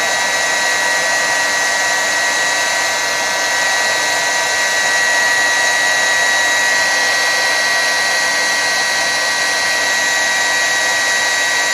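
Hot-air heat gun blowing steadily onto a circuit board to melt the solder of a surface-mount LED: an even rushing hiss from its fan with a steady high whine over it.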